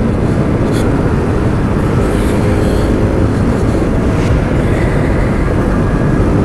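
Bajaj Pulsar NS200 single-cylinder motorcycle running steadily while being ridden along the road, a loud, even rumble with no breaks.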